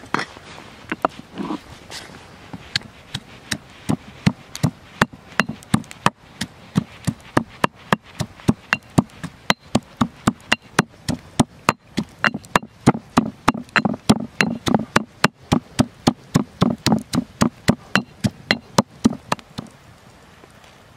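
Stone pestle pounding green chillies in a stone mortar, about three strikes a second. It starts with a few scattered strikes, keeps a steady pounding through most of the time, and stops shortly before the end.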